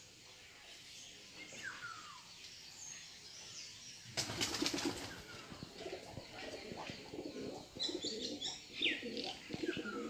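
Birds calling in trees: short chirps, then a sudden loud rustling flutter about four seconds in, followed by low repeated cooing calls mixed with higher chirps.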